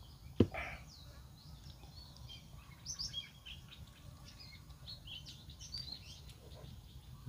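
Small birds chirping in quick short bursts over a low steady background rumble, with one sharp knock about half a second in.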